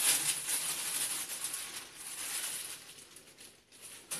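Marinated potato cubes tumbling out of a plastic bag onto a baking-paper-lined metal tray, with the plastic bag crinkling. The rustle dies away about three seconds in.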